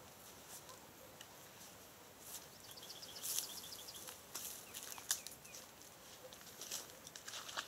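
Footsteps and rustling through dry reeds and grass, in scattered light crunches and clicks, the sharpest about five seconds in. About three seconds in comes a short bird trill of quick, evenly spaced high notes.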